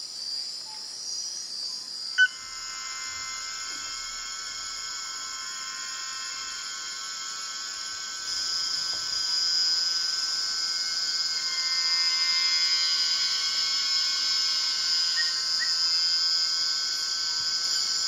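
Rainforest insect chorus: a steady, high-pitched shrilling of crickets and other insects, a little louder after about eight seconds, with one sharp click about two seconds in.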